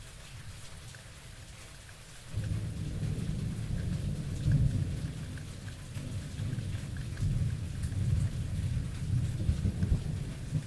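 Steady rain with scattered drop taps, then about two seconds in a long roll of thunder sets in abruptly and rumbles on low, swelling and easing several times.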